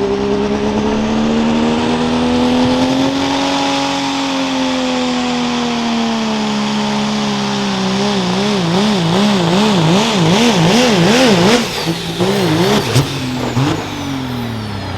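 Diesel pickup truck pulling a sled at full throttle, its engine held high. Partway through, the engine speed starts wavering up and down a couple of times a second as the truck bounces on the track. Near the end the engine note breaks off and drops as the driver comes off the throttle.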